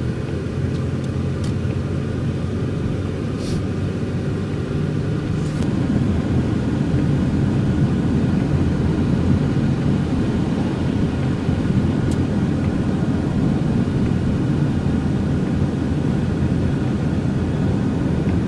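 Car cabin noise while driving: a steady low rumble of engine and tyres on the road, growing a little louder about six seconds in.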